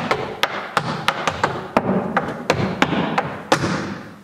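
Clogging shoes striking a wooden dance board in a quick, uneven run of sharp taps and stomps: two basic steps and a turning coal miner step (shuffle, step, toe, hop, step). The strikes stop about three and a half seconds in.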